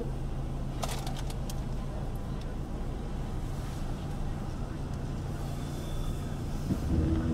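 Vehicle engine idling with a steady low hum, with a few short clicks about a second in and a brief louder sound near the end.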